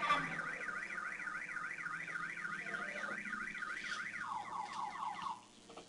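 A warbling electronic alarm tone rises and falls quickly, about four times a second. About four seconds in it drops lower into a run of quick falling sweeps, then stops a second or so later.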